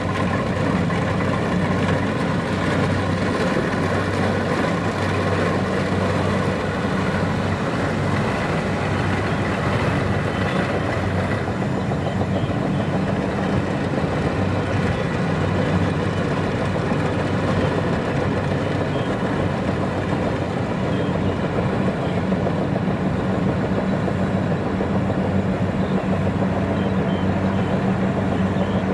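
Kubota DC-70 Plus rice combine harvester's diesel engine running steadily with an even low hum.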